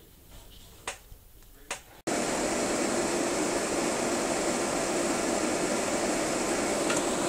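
Two small electric fans of a homemade solder fume hood running together, a steady rush of air with a low hum, starting abruptly about two seconds in. With both fans running, the stronger one pushes air back out through the other, which the builder thinks is spoiling the suction.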